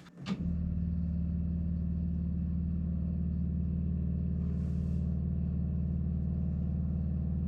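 A steady low hum from the 1950 Pontiac Silver Streak, switched on with the key. It starts abruptly about half a second in and holds at an even level, with a brief soft hiss about four and a half seconds in.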